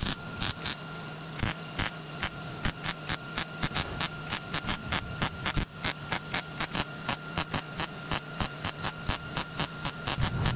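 MIG welding sheet steel with a Millermatic 211 running .030 wire: the arc crackles and pops in quick, irregular bursts, over a steady low hum.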